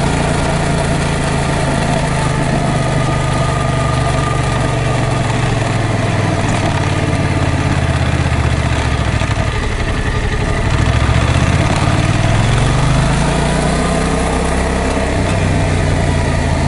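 Yamaha MT-07's 689 cc parallel-twin engine running under way. Its pitch sinks gradually over the first several seconds, climbs again about ten seconds in, then drops back, over a steady rush of wind.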